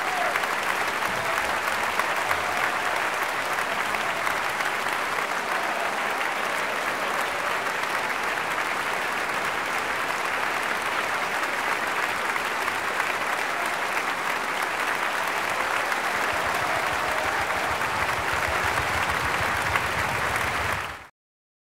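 Concert audience applauding: dense, steady clapping that stops abruptly near the end.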